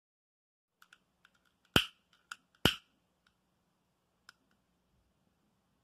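A few sharp clicks and small ticks over a faint hum: two loud clicks about a second apart, with lighter ticks around them.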